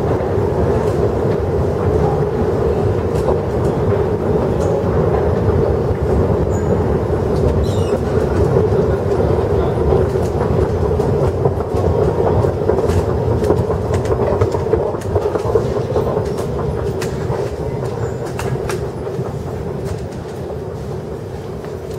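Long metro-station escalator running: a steady mechanical rumble with a constant hum, fading gradually over the last few seconds.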